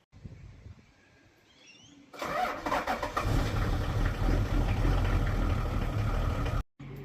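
A vehicle engine starts about two seconds in, then runs with a steady low hum until it cuts off abruptly near the end.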